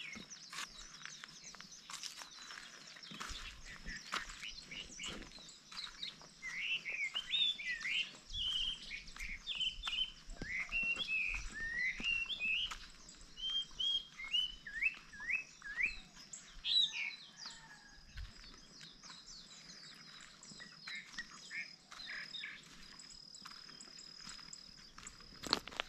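Birds chirping, with a busy run of short, sliding calls in the middle, over a faint steady high tone. Soft footsteps and handling thumps come and go throughout.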